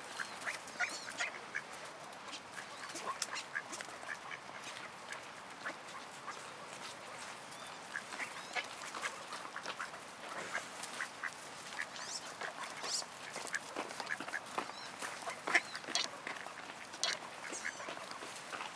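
A group of ducks, mallards and wood ducks, quacking and calling in many short, scattered notes.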